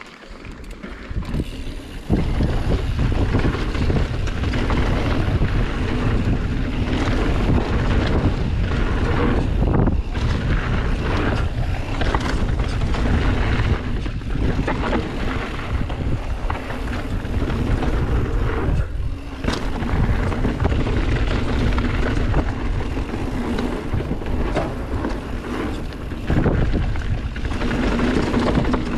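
Wind rushing over the microphone, mixed with the rumble and rattle of a mountain bike riding fast down a dirt trail, with the odd knock over bumps. The noise jumps up sharply about two seconds in.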